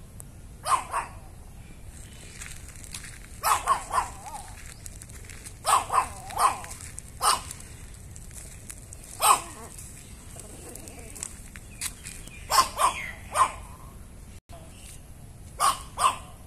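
Chihuahua barking: short, sharp barks in clusters of one to three, a couple of seconds apart, repeated through the whole stretch.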